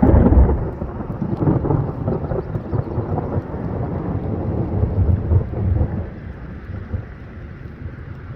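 A thunder clap that breaks sharply at the start and rolls on as a rumble for about six seconds, then dies away.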